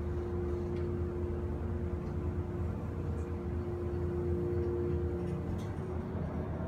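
Hydraulic elevator car rising one floor, its pump running with a steady hum over a low drone. The tone changes slightly near the end as the car nears the floor.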